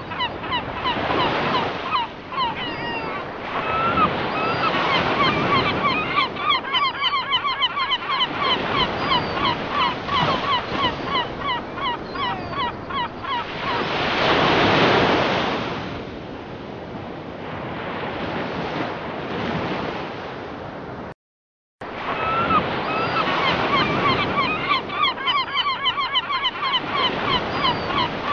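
A flock of gulls calling over and over, many short cries overlapping, above the steady wash of surf breaking on a beach. The surf swells louder about halfway through. The sound cuts out for a moment about three-quarters of the way in, then the gull calls resume.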